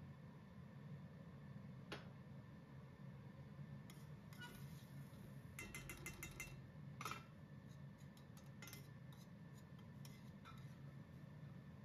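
Quiet clinks and scrapes of a metal spoon stirring tomato sauce in a small stainless steel pan. There is a single clink about two seconds in, a quick run of clinks around six seconds, then scattered ones, over a faint low hum.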